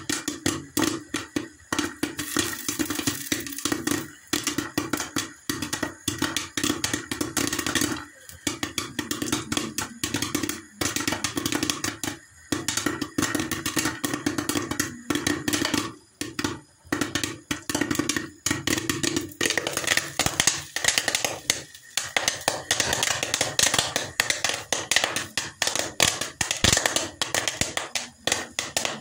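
Popcorn kernels popping rapidly in a covered pan, many sharp pops in quick irregular succession with kernels hitting the glass lid.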